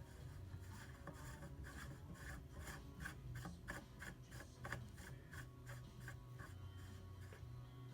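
Metal muzzle brake being threaded by hand onto an AR-15 barrel. It makes faint, light scraping ticks of metal on metal, about three a second, as it is turned down the threads.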